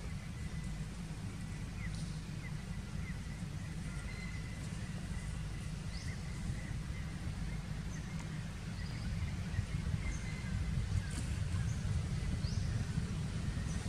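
Outdoor forest ambience: a steady low rumble, like wind on the microphone, with faint, scattered short high bird chirps.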